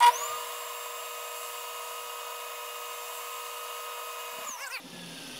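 Flatmaster drum sander switched on, spinning up at once to a steady whine, then switched off about four and a half seconds in and winding down, leaving a fainter hiss.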